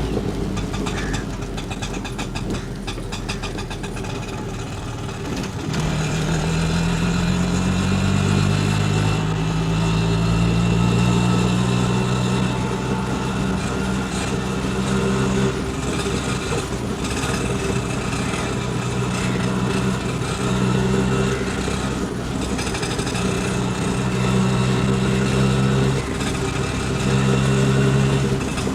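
Indian auto rickshaw's small engine running on the move. From about six seconds in, its pitch rises as it speeds up, followed by several shorter rises and falls through the rest of the stretch.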